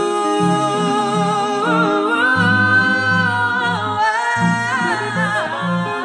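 A woman singing a slow, melismatic vocal line, holding one long note about halfway through, over a Telecaster-style electric guitar playing repeated low notes.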